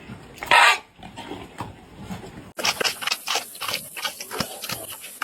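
A pig: one loud, short call about half a second in, then, after an abrupt change in the background, a run of short grunts, several a second.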